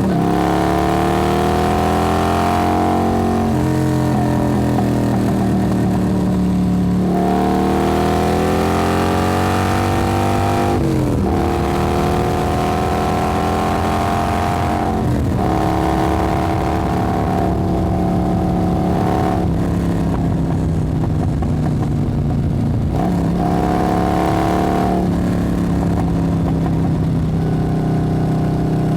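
Motorcycle engine pulling hard through the gears. Its pitch rises steadily, then drops sharply at each gear change, every three to four seconds or so.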